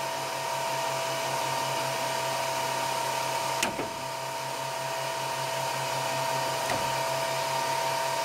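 Steady electric whine and hum from the Flashforge Dreamer 3D printer's extruder cooling fans. There is a sharp click a little over three and a half seconds in and a fainter one near the end, as pliers work a PTFE tube out of the heating block.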